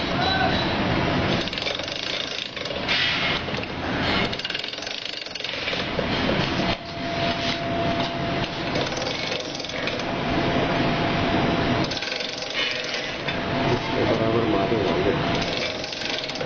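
Bamboo satay-skewer shaving machine running, a loud, continuous mechanical clatter and rasp as bamboo strips are shaved into round skewers.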